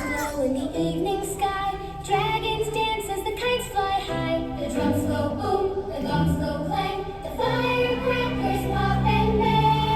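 A group of children singing together to musical accompaniment, with held low notes under the voices.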